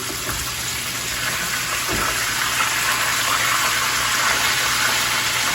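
Sausage pieces frying in olive oil in a pan: a steady sizzle that grows a little louder about two seconds in.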